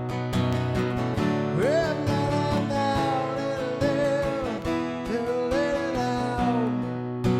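Acoustic guitar strummed steadily, with a wordless sung melody that slides and wavers over it.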